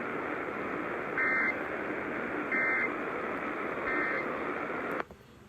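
NOAA Weather Radio broadcast sending three short SAME end-of-message data bursts, each a brief two-tone digital squawk, about a second and a half apart over steady radio hiss. This marks the end of the warning. The hiss cuts off suddenly about five seconds in.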